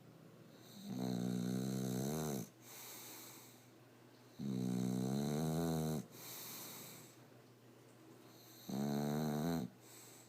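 English bulldog snoring: three loud, rumbling snores on the in-breath, each followed by a softer, airy out-breath.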